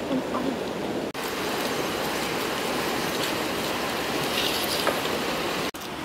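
Steady rushing of a fast-flowing river, which cuts out briefly twice.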